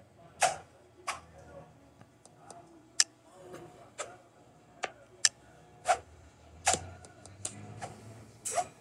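Animation sound effects: a string of sharp clicks and taps, irregularly spaced at about one or two a second, some with a short ringing tone after them.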